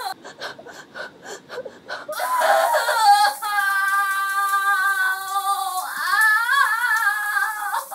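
A woman sobbing: quick gasping sobs for about two seconds, then a long, high wail. A second wail rises and falls about six seconds in.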